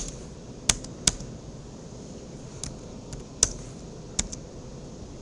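Single keystrokes on a computer keyboard, about eight separate taps spread over a few seconds, over a faint steady hiss.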